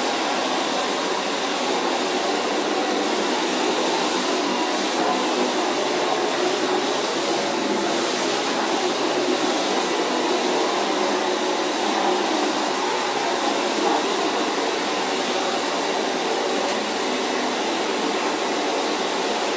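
AEG UltraFlex Pet Pro bagless cylinder vacuum cleaner running steadily, a constant whooshing motor and airflow noise with no change in pitch.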